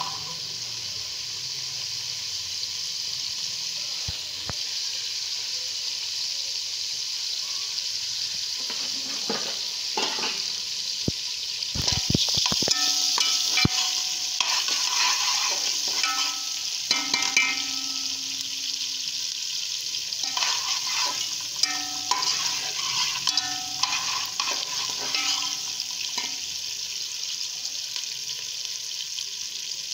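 Onions frying in oil in a pan, being lightly browned: a steady sizzle with a spoon stirring and knocking against the pan in short clusters. The sizzle gets louder about twelve seconds in.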